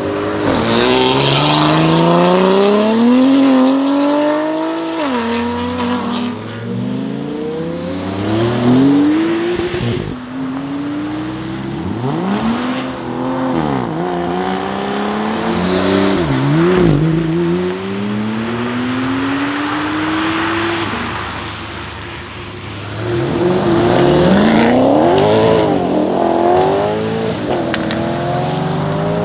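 Audi RS6 Avant C8's twin-turbo V8, breathing through a decat Capristo exhaust with the particulate filter deleted, revving hard again and again, its pitch climbing and dropping, with several sharp exhaust cracks. It eases off a little past the middle, then revs up again.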